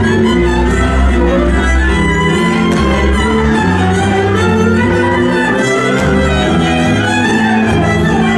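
Hungarian folk dance music: a fiddle-led string band playing over a pulsing bass line.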